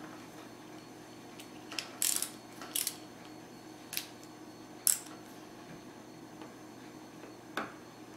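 Small sharp clicks and taps, about six at irregular intervals with the loudest about five seconds in: a tiny Phillips screwdriver working the small screws out of a smartphone's frame and the screws being set down.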